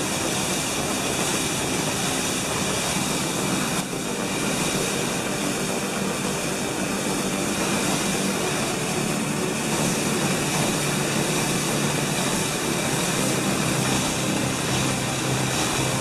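Water-powered sawmill running: a steady, even mechanical rushing noise with no clear rhythm.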